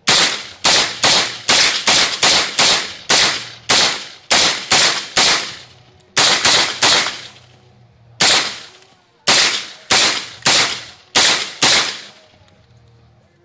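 Windham carbon fiber AR-15 rifle fired rapidly in semi-automatic, about two dozen shots at roughly three a second, with a couple of short pauses midway: a magazine dump.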